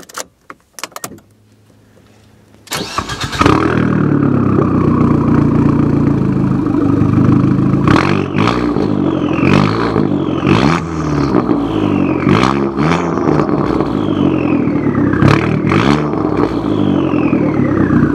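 Abarth 500's turbocharged 1.4-litre four-cylinder engine starting about three seconds in, then idling and being revved in a series of short blips. Each blip ends with a sharp burst and a falling whistle from the newly fitted turbocharger.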